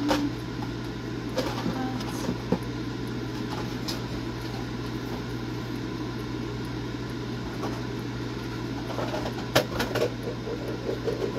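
Air fryer running with a steady fan hum. A few light clicks and knocks come over it, most of them near the end.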